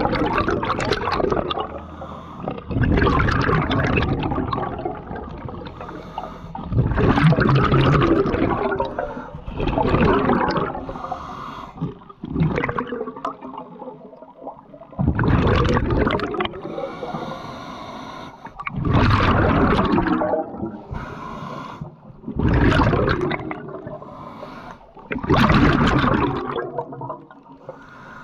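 A scuba diver breathing underwater: bursts of breath and exhaled bubbles gurgling past the microphone every few seconds, in a steady rhythm.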